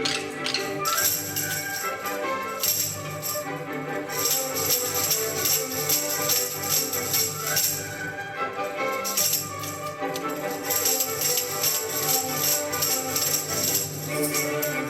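Music playing, with held notes and a bright rattling percussion part that drops out for a couple of seconds past the middle.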